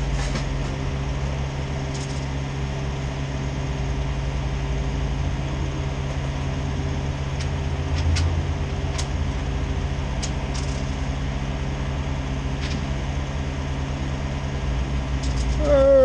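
Steady low drone of a parked delivery box truck idling, a constant engine hum with a few faint clicks over it.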